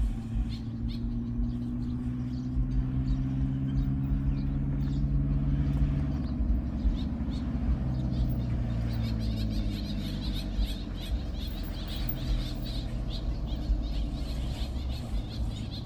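A steady low motor hum whose pitch drifts slowly up and down, with a quick run of high chirps from about nine seconds in.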